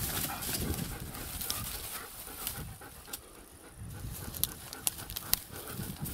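A dog panting with its tongue out, with a few sharp clicks in the second half.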